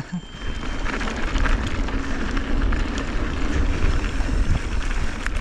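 Mountain bike riding fast over dry, loose dirt, with wind rushing over the action camera's microphone and the steady rumble and crunch of knobby tyres, plus a few sharp rattles near the end.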